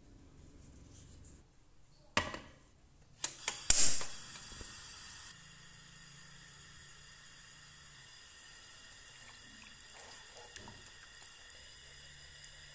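Saucepan knocks down once on a portable gas cassette stove. About a second later the igniter clicks and the burner lights with a loud whoosh, settling into a steady hiss of the flame as the butter and water heat.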